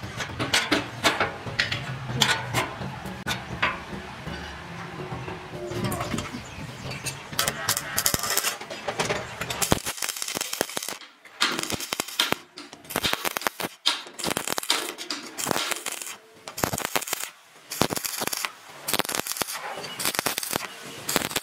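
Metal clinks of a spanner working bolts on a sheet-steel housing, then, from about ten seconds in, a stick arc welder crackling and spitting in uneven bursts.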